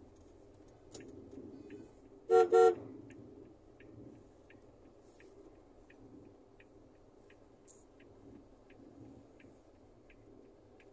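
Two short, loud horn blasts about two seconds in, over a steady low rumble, with faint regular clicks about twice a second throughout.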